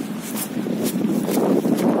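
Footsteps of someone walking on pavement, about two steps a second, over steady wind noise on the microphone.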